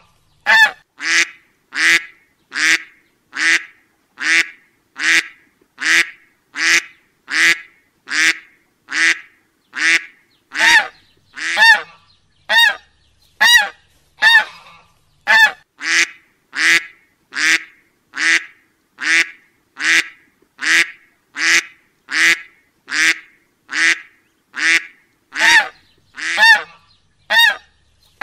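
Duck honk sound effect repeated in an even loop: short, identical squeaky honks, a little more than one a second.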